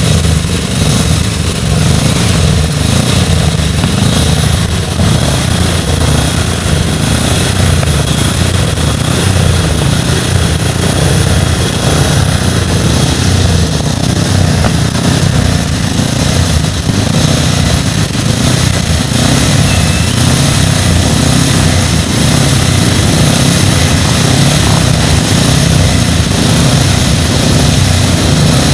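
Vintage racing car engines running as the cars move slowly through the paddock, a steady loud drone with no clear revving.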